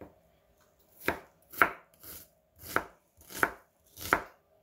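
Chef's knife chopping an onion on a wooden cutting board: about six sharp knife strikes at an unhurried, fairly even pace, starting about a second in.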